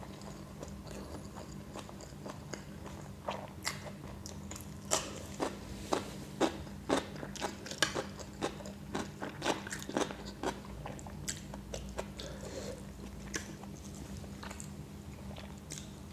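A person chewing and biting food close to the microphone, with a run of sharp, irregular crunches through the middle of the stretch that thin out near the end. A faint steady hum sits underneath.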